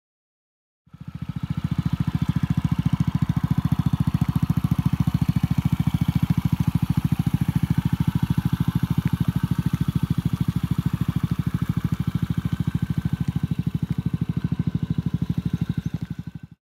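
A 2006 Honda NPS50 Ruckus scooter's 49 cc single-cylinder four-stroke engine idling steadily through a loud aftermarket exhaust, with a fast, even exhaust beat. It fades in about a second in and fades out just before the end.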